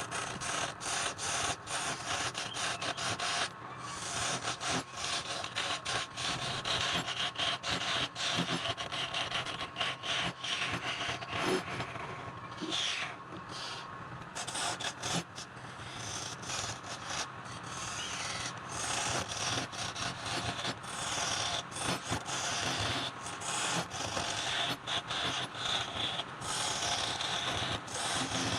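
Wood being turned on a lathe: a cutting tool scrapes and rasps continuously against the spinning wood, with many small clicks.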